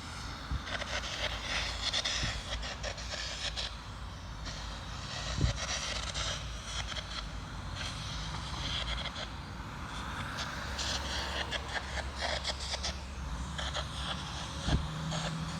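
Electric arc welding crackling and sputtering in uneven spurts, with a steady low hum underneath and a couple of sharp knocks.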